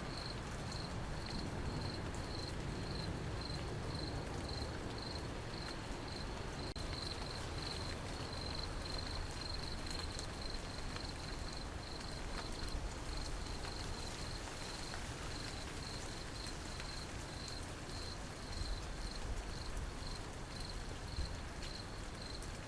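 Steady rain with a cricket chirping in a regular pulse, a little over two chirps a second.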